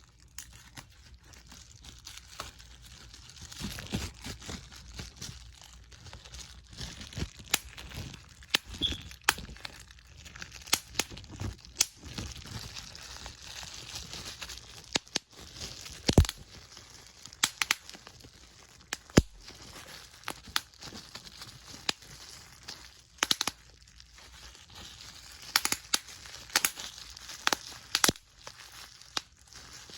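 Close-up crinkling handling noise with dozens of sharp, irregular pops scattered throughout, the loudest pop about sixteen seconds in.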